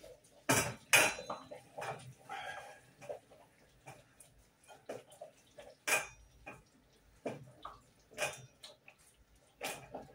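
Stainless steel pot lid and pot clanking as the lid is lifted and the pot is stirred: a few sharp metallic knocks with short ringing, the loudest two close together in the first second, the rest spread out, with light clatter between.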